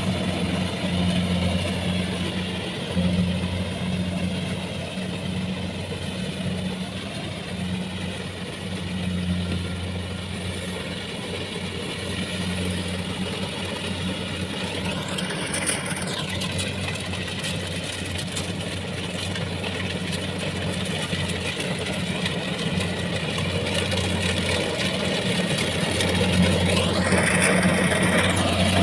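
Combine harvester's diesel engine running steadily with a constant low hum and machine clatter, as it works a rice field. Brief sweeps of higher-pitched noise come once about halfway and again near the end.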